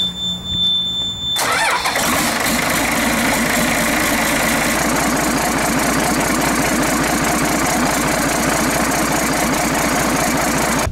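Cummins 6BTA 5.9 marine diesel, a turbocharged inline six, being started: it cranks for about a second and a half with a thin high whine, catches, and then runs steadily.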